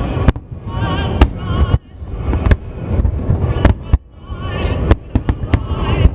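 Aerial fireworks shells bursting in a string of sharp bangs, roughly one a second, with several in quick succession about five seconds in. Music plays steadily underneath.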